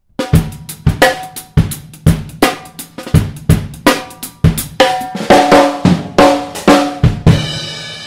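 Acoustic drum kit playing a busy pattern of bass drum, snare and toms, the toms sounding at several pitches that move lower about five seconds in. It ends on a cymbal crash about seven seconds in that rings on and fades slowly.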